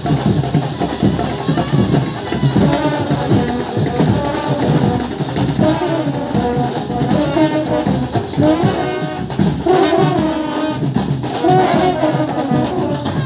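Indian baraat brass band playing loudly in the street: brass horns carry the melody over beating drums.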